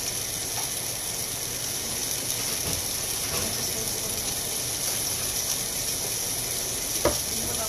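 Steady hiss of food cooking on the stove, with a single sharp knock about seven seconds in.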